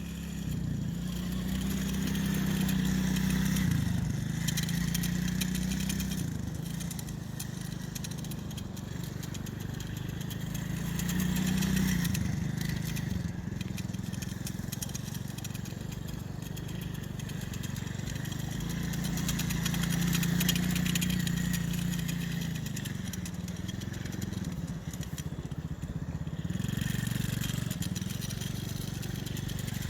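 Small 110 cc four-stroke engine of a children's mini ATV running, its pitch rising and falling several times as the throttle is opened and eased off.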